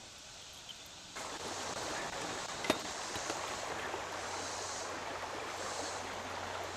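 Steady rushing of river water, starting abruptly about a second in, with a single sharp click a couple of seconds later.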